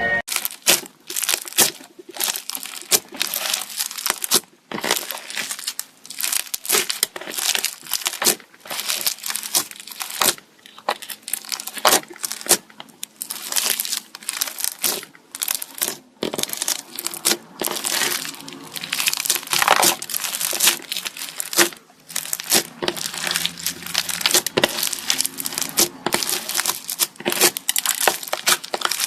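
Slime being squished and worked by hand, crackling with dense, irregular clicks and pops.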